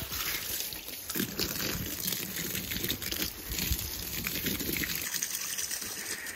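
Water from a garden hose splattering steadily onto broad plant leaves and wet soil, an uneven pattering hiss.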